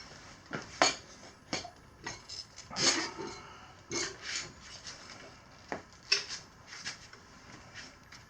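Irregular clinks, knocks and scraping of tire levers and hands working a stiff Shinko F546 knobby tire onto a dirt-bike wheel rim, with rubber rubbing between the sharper clicks.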